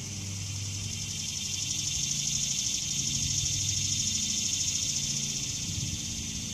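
Insects trilling outdoors, a high, finely pulsing chorus that swells toward the middle and eases off near the end, over a faint low hum.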